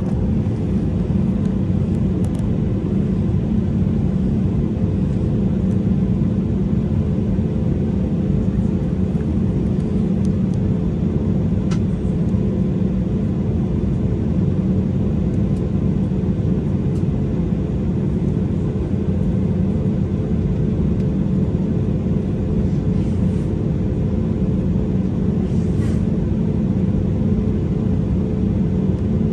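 Airbus A320neo engines at low taxi thrust heard inside the cabin over the wing: a steady drone with a low hum and a higher hum tone, unchanging in level, with a few faint clicks.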